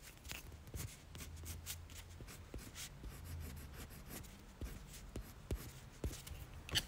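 White coloured pencil scratching on Canson Mi-Teintes paper, with quick short back-and-forth strokes as the cross of a star is drawn over the coloured background.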